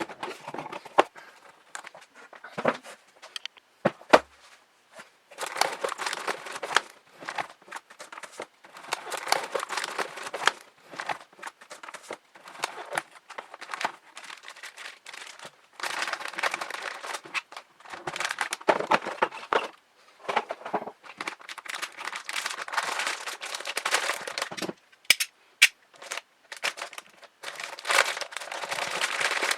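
Packaging being handled: irregular crinkling and rustling of plastic wrap and cardboard, with a few sharp clicks and knocks in between.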